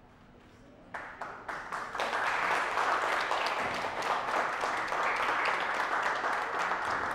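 Audience applause: a few scattered claps about a second in, building to steady clapping.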